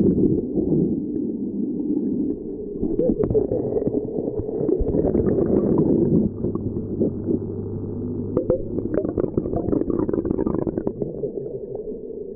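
Submersible aquarium pump running in a basin of water, its outlet churning and gurgling the water at the surface, with a low hum coming through for a few seconds in the middle. Scattered knocks and rustles from the camera being handled.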